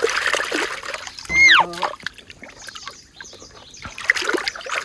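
Water splashing and trickling as a muddy toy vehicle is washed by hand. About a second and a half in there is a short pitched sound that rises and then falls, which is the loudest moment.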